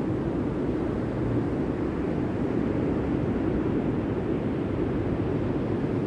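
Steady low rumbling noise of ocean surf and wind on the microphone, with no distinct events.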